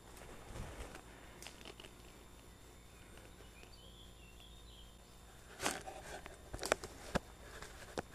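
Footsteps through dry leaf litter on a forest floor, with a cluster of crackles and a few sharp snaps like twigs breaking underfoot in the second half. A faint bird chirp comes around the middle.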